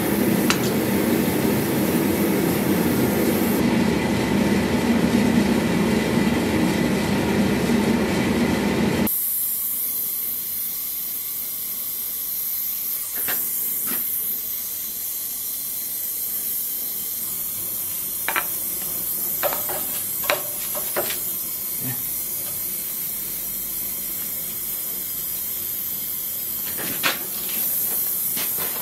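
Gas torch flame burning steadily with a loud roar, then, after an abrupt change about nine seconds in, the softer steady hiss of a small torch flame, with a few sharp ticks.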